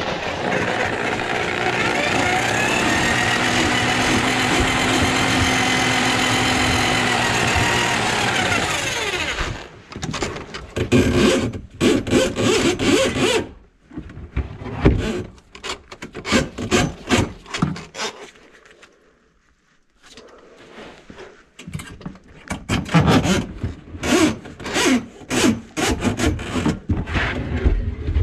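Motorised drum drain-cleaning machine running steadily, its cable turning in a kitchen sink drain line plugged with grease; the motor cuts off suddenly about nine seconds in. Then irregular clattering, knocking and scraping follows, with a short pause partway through.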